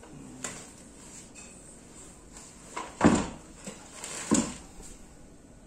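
Plastic office-chair parts being handled: a scatter of light knocks and clatter, with two louder knocks about three and four seconds in.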